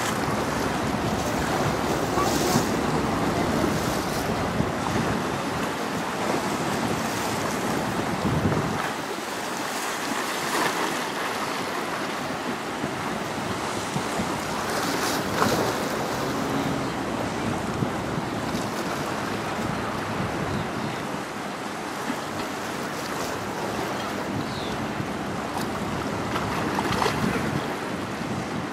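Strong wind buffeting the microphone over choppy water, with waves splashing and slapping. A heavy low rumble of wind on the microphone fills the first several seconds, then eases, and brief louder gusts or splashes come every few seconds.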